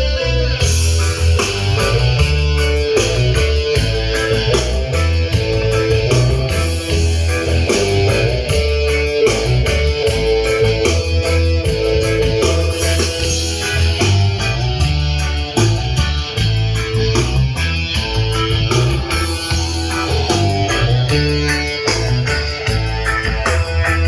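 Recorded guitar-led music with heavy bass and a steady beat, played back loud through a PA system of amplifiers and passive speakers during a sound check.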